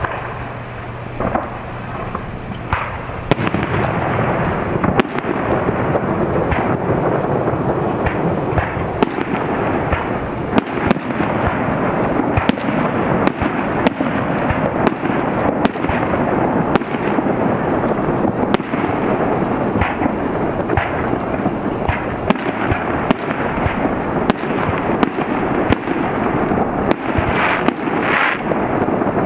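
Aerial fireworks display: a few separate shell bursts, then from about three seconds in a dense barrage of overlapping bangs and crackle that runs on as one continuous din with frequent sharp reports.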